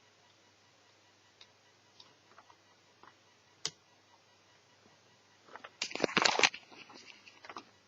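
Small clicks from handling netbook parts by hand, a few scattered at first with one sharper click, then a short burst of clattering about six seconds in.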